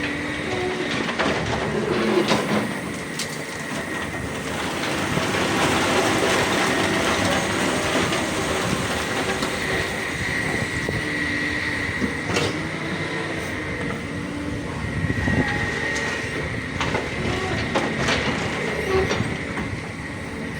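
Excavator digging in rock: the diesel engine runs steadily under load with a steady high hydraulic whine, and the bucket gives scattered clanks against stone.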